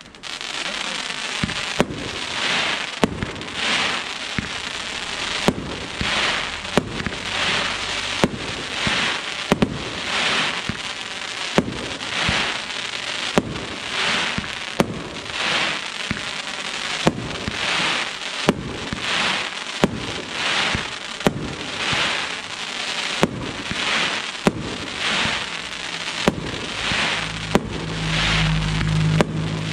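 El Gato Cracker Dragon Eggs fireworks cake firing shot after shot, a little under one a second. Each shot is a launch thump followed by a burst of crackling dragon-egg stars, heard from about 70 m away. A low steady hum joins in near the end.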